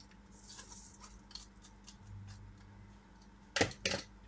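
A wooden spoon stirring soup in a cooking pot, with light scraping and small clicks, then two sharp knocks of utensils against the pot about a third of a second apart near the end.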